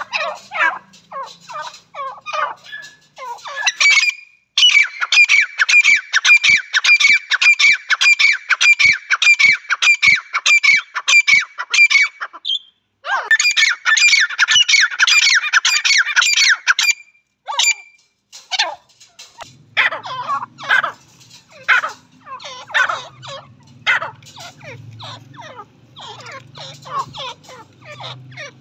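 Grey francolins calling. A long fast run of sharp, repeated call notes, a brief break, then a second run, followed by slower, scattered calls. In the last third, a low hum sits beneath the calls.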